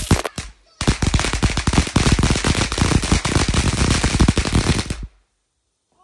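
Firework fountain going off with loud, rapid crackling pops, many a second. There is a brief pause about half a second in, and the crackle stops abruptly about five seconds in.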